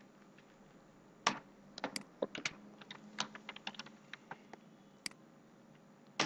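Typing on a computer keyboard: irregular keystrokes starting about a second in, with a last click near the end.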